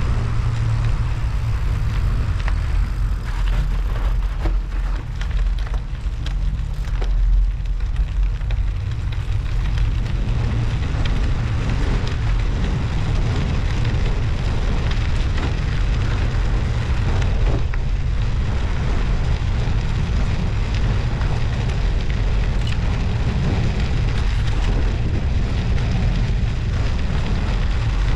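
Steady wind rumble on a bicycle-mounted action camera's microphone while riding, over the crackle of studded winter tyres rolling on snow and ice.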